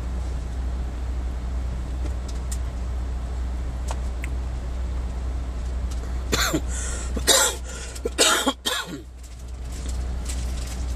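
Scania K440 coach engine idling with a steady low drone, heard from inside the bus. A person coughs about four times in a short fit, six to nine seconds in.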